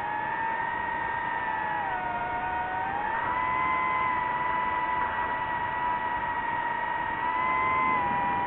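DJI FPV drone's electric motors and propellers whining, several tones shifting up and down in pitch as the throttle changes. The pitch dips about two seconds in, rises again about a second later, then holds fairly steady.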